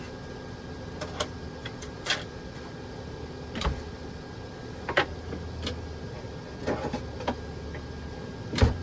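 Scattered clicks and light knocks of kitchen containers and utensils being handled while relish is mixed with green food dye, the loudest knock near the end, over a steady low hum.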